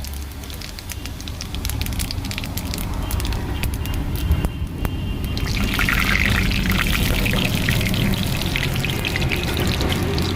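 Hot cooking oil in a pan sizzling and crackling as whole spices fry in it, the sizzle growing louder and denser about halfway through. A steady low hum runs underneath.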